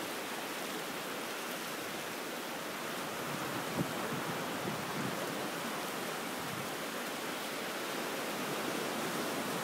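Steady, even hiss of outdoor background noise, with one faint click about four seconds in.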